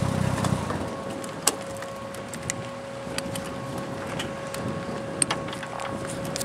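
Caterham Seven's engine idling, then switched off about a second in. After it stops, a steady thin whine carries on, with scattered sharp clicks.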